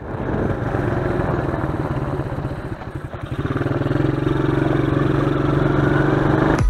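125cc quad's single-cylinder engine running under way, easing off briefly about three seconds in, then picking up again and holding a steady, louder note.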